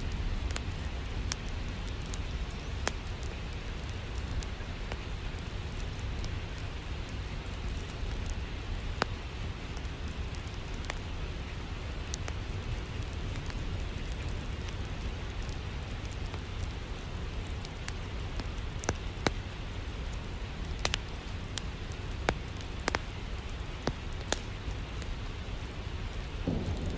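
Steady rain with a low rumble underneath, dotted with scattered sharp crackles and pops of a wood fire. A deeper rumble swells up near the end.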